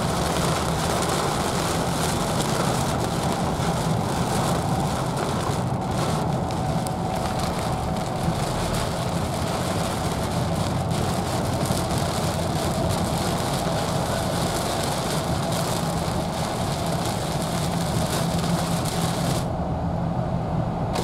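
Steady road noise inside a Chevy driving on a rain-soaked highway: tyres on the wet road and a low engine and road drone, with rain on the windscreen. Near the end the high hiss drops away suddenly.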